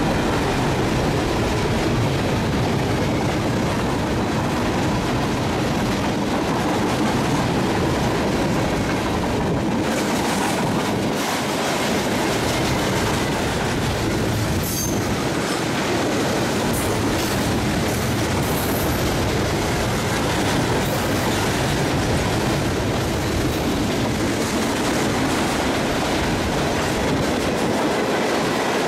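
CSX freight train's cars rolling past, steel wheels clattering steadily over the rail joints, with a few brief high wheel squeals about halfway through.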